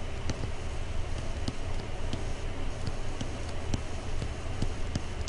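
Irregular light clicks of a stylus tapping on a tablet screen during handwriting, over a steady low hum and hiss.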